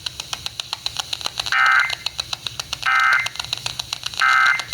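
Emergency Alert System end-of-message signal: three short buzzing data bursts of warbling tones about a second and a half apart, marking the end of the alert. A rapid, even clicking runs underneath.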